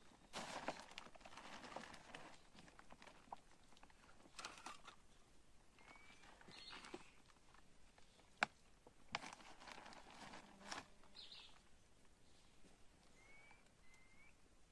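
Faint rustling and crinkling of a plastic tarp being handled, with footsteps on damp leaf litter and one sharp knock a little over eight seconds in. Short bird chirps come now and then.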